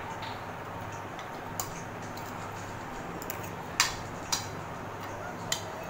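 Spoons and forks clicking against china plates a few times, the loudest click about four seconds in, over a steady background hum.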